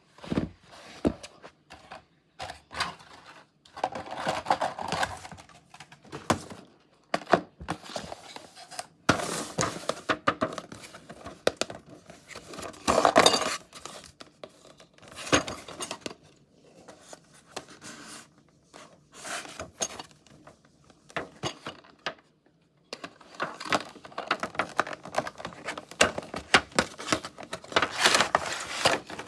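Hands unboxing a model airplane: packaging crinkling and tearing, with scattered small clicks and knocks as it is handled, in bursts with short pauses.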